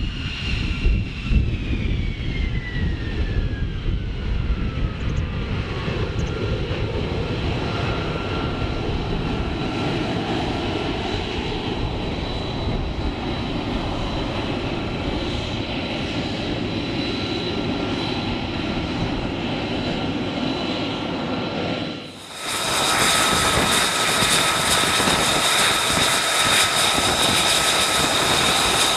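F-35 fighter's jet engine whining and rushing as the jet taxis past, with one whine dropping steadily in pitch over the first few seconds. After a cut about 22 s in, a louder, steady jet-engine whine and roar of aircraft turning on a carrier flight deck.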